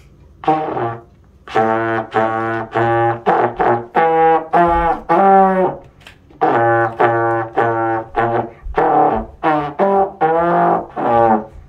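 A trombone playing a run of short, separate notes in two phrases, with a brief pause about halfway through.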